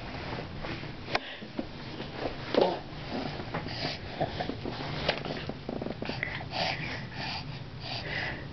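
Close snuffling and sniffing breaths, a few short puffs of air, from a baby with his face pressed into a cat's fur, over a low steady hum.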